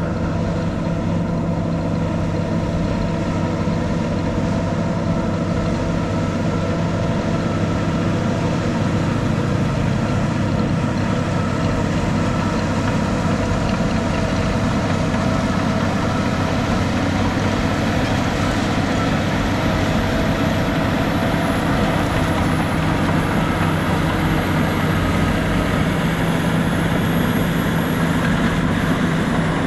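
Heavy diesel engine of earthmoving machinery running steadily at a constant speed.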